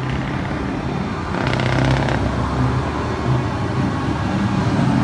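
Heavy trucks' diesel engines running low and steady as they drive along a city street, with a brief higher rattling burst between one and two seconds in.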